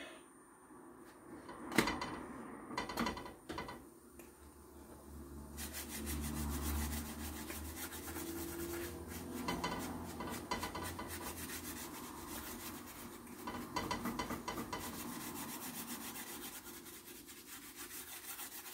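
Pastry brush rubbing oil over a chapati in a hot frying pan: quick, scratchy brushing strokes that start about five seconds in and run on. A single knock comes about two seconds in.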